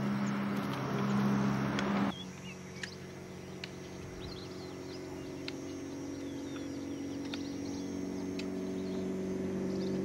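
Birds chirping repeatedly over the steady low hum of an engine, most likely a vehicle, that slowly grows louder. For the first two seconds a louder rushing noise covers it, then cuts off abruptly.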